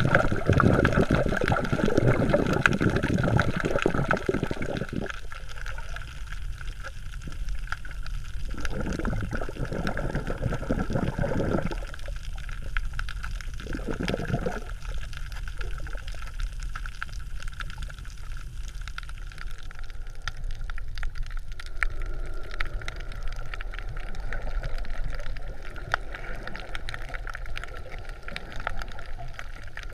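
Water gurgling and sloshing, heard underwater and muffled. It comes in bursts: a long one over the first five seconds, two more in the first half, then a quieter steady wash.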